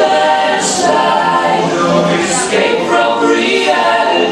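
A group of voices singing together without instruments, in long held notes.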